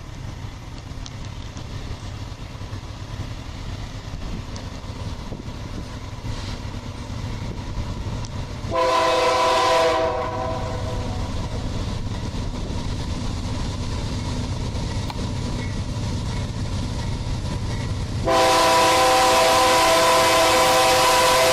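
Diesel freight locomotive approaching with a low rumble that slowly grows louder, sounding its multi-chime air horn for a grade crossing: a short blast about nine seconds in, then a long blast starting near the end.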